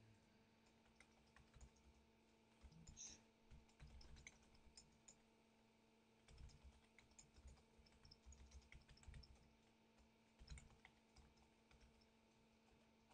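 Faint computer-keyboard typing: irregular runs of soft keystrokes as a command is typed, with short pauses between runs.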